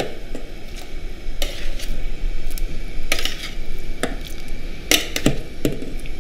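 Stainless steel tongs clinking against the rim of a steel pot and a metal tray as pieces of beef heart go into boiling water to be parboiled. The clinks are short and sharp, about eight of them at irregular spacing, over a steady hiss.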